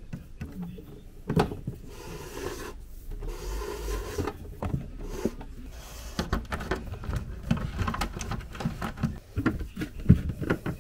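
Cables being handled and pulled through a plastic enclosure: rubbing and scraping of cable jackets with many small clicks and knocks, and a sharper knock near the end as the enclosure is handled.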